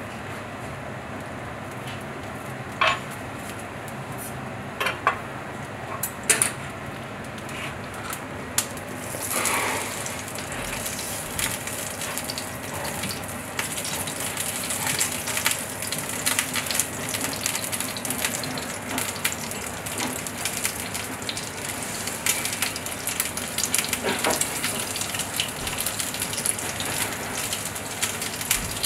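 Pigeon breast roasting in a frying pan: a few sharp clinks of tongs against the pan in the first third, then steady sizzling that sets in about ten seconds in and carries on.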